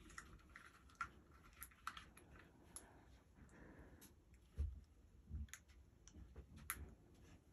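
Faint, scattered clicks of a small plastic multi-pin wire connector and electric-scooter throttle housing being handled and pushed together by hand, with a couple of soft low thumps about halfway through.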